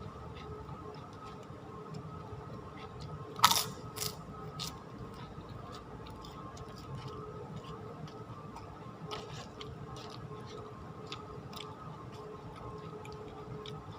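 A person chewing and crunching a mouthful of ketoprak, with small scattered clicks and smacks. One louder sharp click comes about three and a half seconds in.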